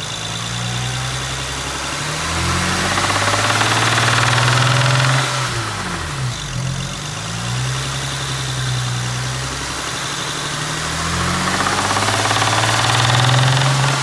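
Car engine with a spun bearing, revved up and let back down twice: a horrendous knocking noise under the engine's running.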